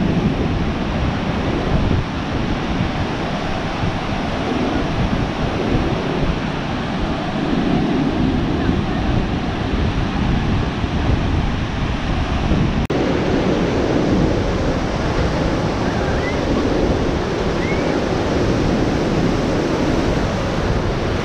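Sea surf washing on a beach, with wind rushing and buffeting over the microphone. A single sharp click comes about 13 seconds in, after which the surf sounds a little fuller.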